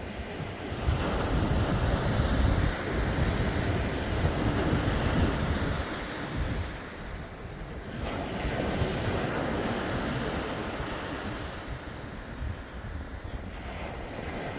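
Ocean surf breaking and washing up a sandy beach, swelling twice: from about a second in and again about eight seconds in. Wind buffets the microphone with a low rumble.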